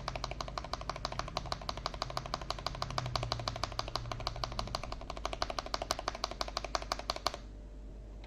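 Fast typing on a mechanical keyboard fitted with Akko CS Jelly Black linear switches, a quick run of keystroke clacks that stops suddenly about seven seconds in.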